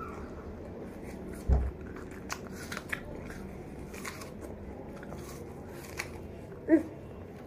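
Children biting and crunching into raw apples, with scattered crisp clicks. A dull thump about a second and a half in, and a short vocal sound near the end.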